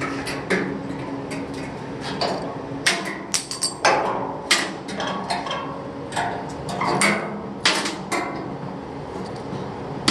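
A hammer striking metal in a run of uneven taps, a dozen or more blows.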